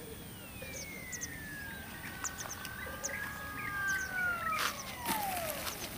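Motor whine of a homemade foam RC model plane in flight, falling steadily in pitch over several seconds, levelling briefly, then dropping further near the end. Small birds chirp in short bursts throughout, and a couple of sharp clicks come near the end.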